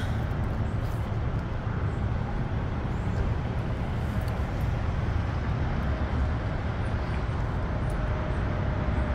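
Steady low rumble of road traffic, even and unbroken, with no single sound standing out.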